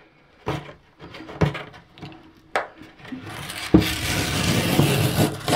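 Cardboard mailer envelope being handled with a few light knocks, then its tear strip pulled, a loud tearing rip of card that starts with a snap about three and a half seconds in and lasts about two seconds.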